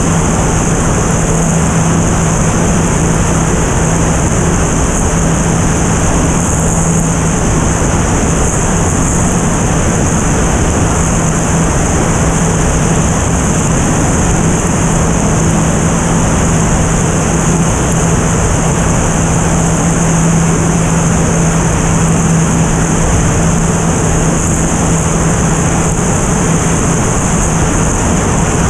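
Single-engine three-blade propeller airplane in level flight, heard from a camera on the outside of the airframe: a steady engine and propeller drone under loud, even wind rush over the microphone.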